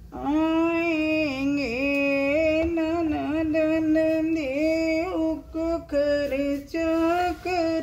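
A woman singing a Hindi devotional folk song (bhajan) unaccompanied, drawing out long held notes with small turns in pitch, breaking off briefly a few times near the end.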